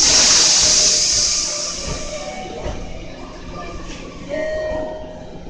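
Electric train noise at a station platform: a loud hiss of released air at the start that fades over about two seconds, then a short, steady horn-like tone about four and a half seconds in.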